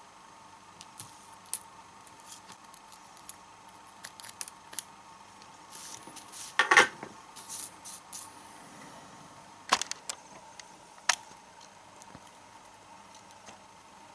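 Scattered light clicks and clinks of small hand tools and cut-off metal battery tabs being handled on a workbench, with one louder clatter about seven seconds in and two sharp clicks a few seconds later.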